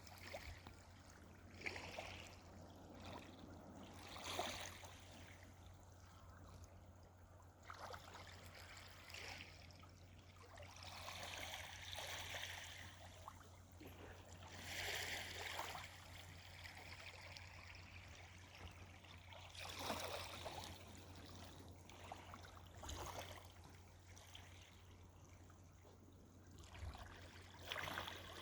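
Faint washing of water that swells every few seconds, over a low steady hum.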